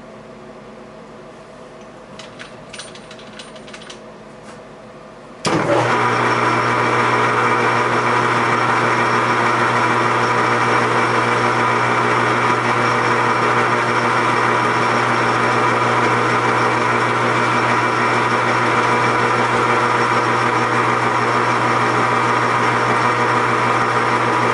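A few light clicks, then about five seconds in a metal lathe's motor switches on abruptly and runs at a loud, steady hum.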